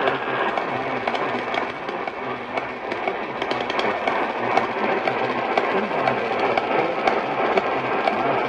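Heavy rain falling steadily, a dense crackle of drops.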